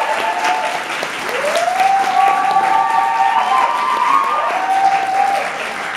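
Small audience applauding, with two long whooping cheers over the clapping.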